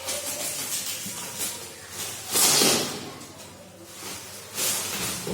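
Packaging being handled and unwrapped: plastic wrapping and cardboard rustling and crinkling in uneven bursts, loudest about halfway through and again near the end.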